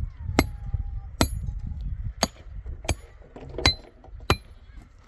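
Six sharp strikes, roughly one every two-thirds of a second to a second, each with a short high metallic ring, over a steady low rumble.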